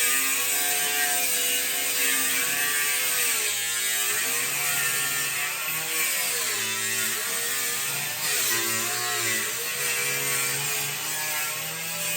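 Electric power saw cutting through a metal-skinned, foam-core door. The motor's pitch dips and recovers again and again as the blade meets more or less resistance.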